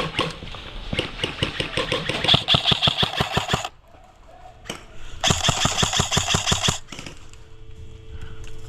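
Airsoft electric gun firing on full auto in two long bursts of rapid shots, the second shorter, with a faint steady hum afterwards.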